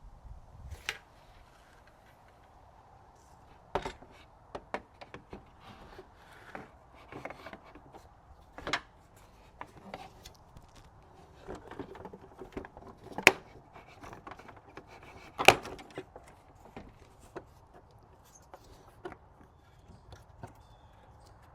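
Scattered, irregular clinks and knocks of hand tools and metal parts as a replacement radiator is fitted and bolted into a car's engine bay, the loudest knock about fifteen seconds in.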